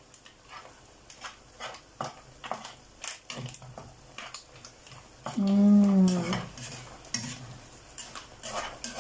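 A black plastic slotted spatula stirring seafood in sauce in a non-stick frying pan, scraping and tapping against the pan in repeated short strokes, with a light sizzle. About halfway through, a single drawn-out vocal note lasts about a second and falls in pitch at its end.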